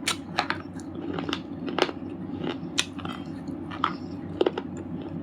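Red slate chips being bitten and chewed: a run of sharp, irregular crunches and cracks, about two or three a second, over a steady low hum.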